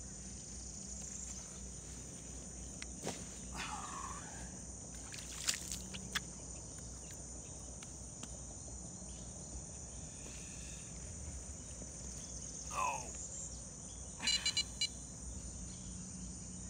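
Steady high-pitched chorus of insects, with a few sharp clicks around the middle, two short rising calls, and a brief rapid rattle near the end that is the loudest sound.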